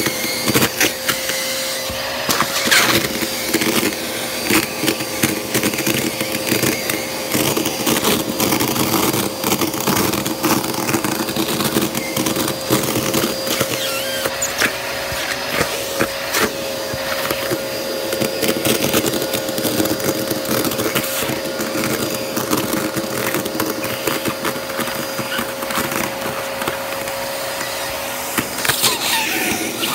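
Vacuum cleaner running with a steady whine while its wand sucks up loose squares of tissue paper from carpet, the paper crackling and ticking as pieces are drawn into the hose. The whine breaks off near the end.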